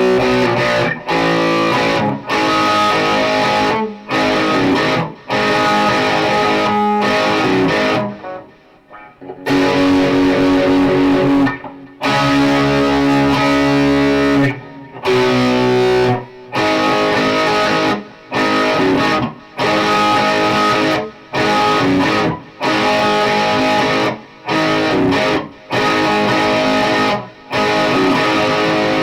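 Electric guitar fitted with Fleor Alnico 5 two-wire humbuckers playing chords, each chord stopped short with brief gaps between them. There is a longer break about eight seconds in.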